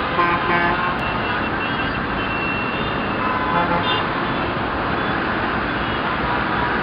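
Steady road traffic noise with vehicle horns giving several short toots in the first second, and more horn tones about three to four seconds in.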